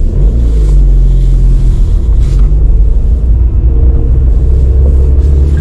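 Car engine and road noise heard from inside the cabin while driving: a steady low drone with a hum of engine tones.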